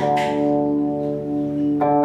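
Electric guitar chord struck and left ringing with long, steady sustain, then a new chord struck near the end.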